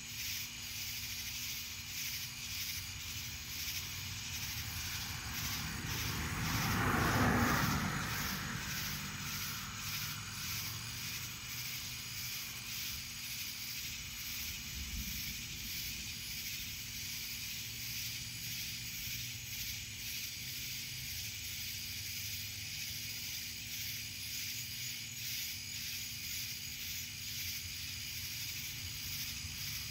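Night insect chorus of cicadas, a steady high-pitched pulsing. About six seconds in, a rushing noise swells and fades over some three seconds, the loudest sound here.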